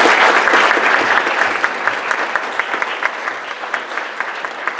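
Audience clapping in a round of applause, loudest at the start and gradually easing off.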